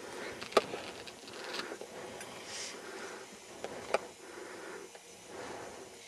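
Low rustling handling noise with two sharp clicks, one about half a second in and one about four seconds in. No snowmobile engine is heard running.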